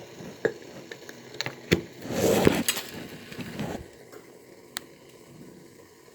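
Kitchen handling noise as a tight container is worked open: a few sharp clicks and knocks, with the loudest part a scraping rustle a little after two seconds in. It goes quieter from about four seconds.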